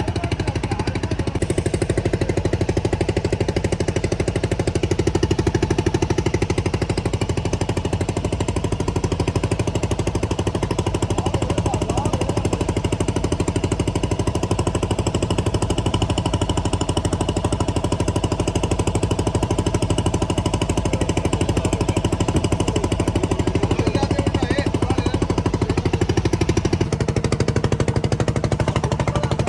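Fishing boat's engine running steadily with a fast, even chugging beat; its note shifts slightly near the end.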